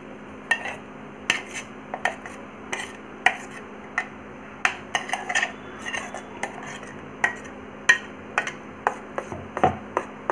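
Metal spoon clinking and scraping against a steel bowl while a thick batter is scooped and stirred: a string of sharp, irregular clinks, two or three a second, over a faint steady hum.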